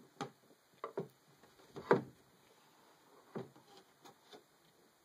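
A slipcase being worked off a doll's display box by one hand: a few short scuffs and knocks, spaced irregularly, the loudest about two seconds in.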